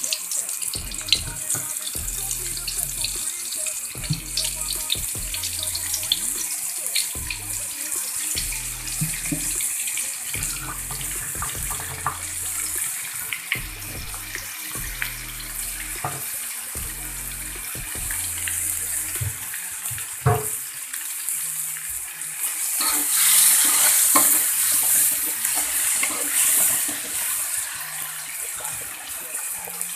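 Ground chili, garlic and shallot spice paste sizzling as it fries in hot oil, with occasional sharp clicks from stirring. The sizzle grows louder about two-thirds of the way through.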